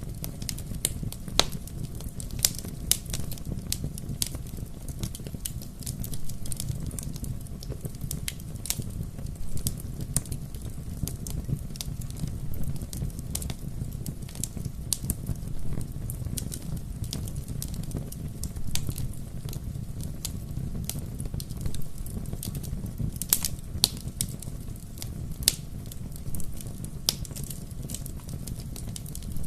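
Wood fire crackling: irregular sharp pops and snaps over a steady low rumble of burning.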